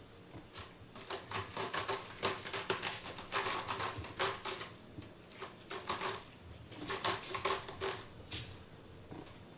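A cat's claws raking a sisal-rope scratching post in quick scraping strokes, in several spells with short pauses between them.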